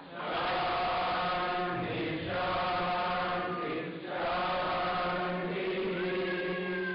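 Devotional chanting: voices singing long held phrases that break off every two to three seconds, over a steady low drone.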